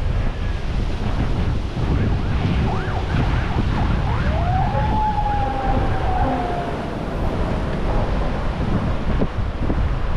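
Wind buffeting the microphone over ocean surf. A few seconds in come several short gliding cries, then one longer cry that rises and slowly falls off.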